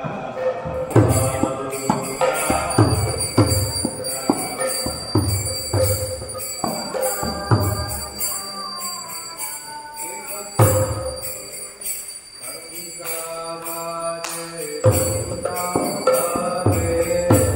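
Devotional kirtan music for a temple aarti: voices singing over a drum beat of about two strokes a second, with bells and small hand cymbals ringing continuously. The drum drops out for a few seconds around the middle.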